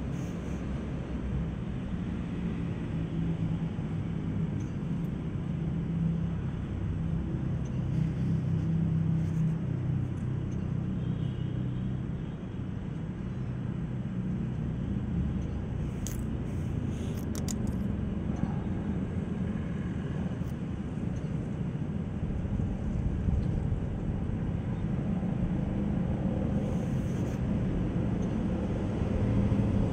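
Caterpillar excavator's diesel engine running steadily, a low rumbling drone heard inside the operator's cab while the control levers are worked.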